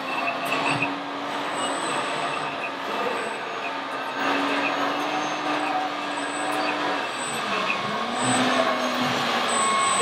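Radio-controlled model excavator and dump truck working, with a steady motor drone whose pitch dips and recovers twice near the end, over a constant background din.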